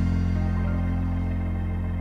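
Background music ending on a single long held chord that slowly dies away.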